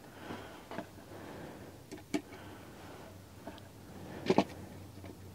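Light clicks and taps of tiny screws, a small screwdriver and plastic chassis parts being handled on a wooden table, with a sharper double click about four seconds in.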